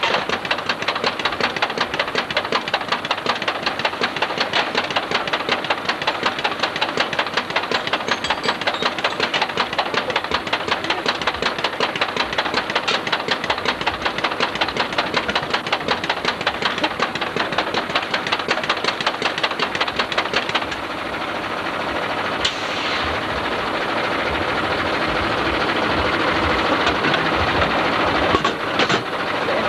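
A small engine running with a fast, even knocking beat, about five strokes a second. About two-thirds of the way through, the beat gives way to a steadier running noise that slowly gets louder, and a few metal clinks come near the end.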